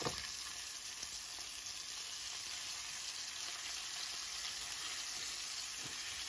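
Chicken pieces frying in shallow oil in a pan, a steady sizzling hiss. A light click of the tongs comes just at the start and again near the end, as the pieces are turned.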